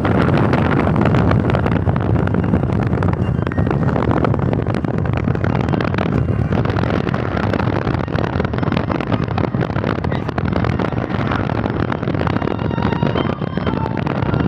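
Steady wind rush and road noise from a moving vehicle at highway speed, buffeting the microphone with a low rumble.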